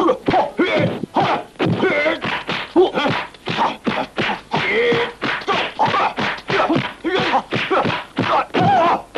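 Kung fu film fight sound: a fast, continuous run of punch and slap impact effects, several blows a second, mixed with the fighters' short shouted yells and grunts.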